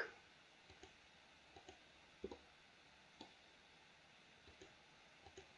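Near silence with a handful of faint computer mouse clicks, spaced irregularly.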